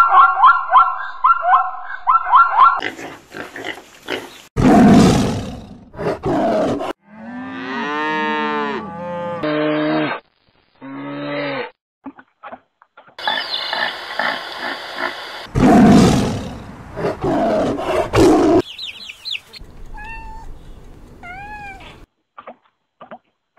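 A run of different animal calls cut one after another. It opens with a zebra's rapid, repeated barking calls, followed by several loud roars and growls and other cries. Near the end come a few short high chirps.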